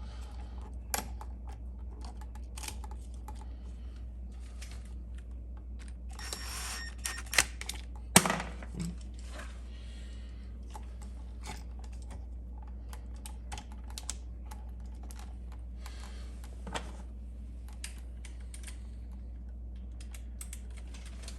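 Scattered small clicks and taps of wires and hand tools being worked on a GFCI outlet's terminals, with two sharper knocks about seven and eight seconds in, over a faint steady low hum.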